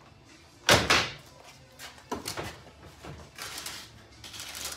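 A roll-up tonneau cover on a pickup bed being released and rolled back. There is a sharp clunk less than a second in, then lighter knocks and rustling of the cover.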